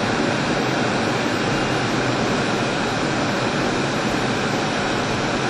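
Steady rushing noise inside the cockpit of a two-seat MiG-29UB fighter jet in flight: airflow and jet engine noise at an even level, with no tones or knocks standing out.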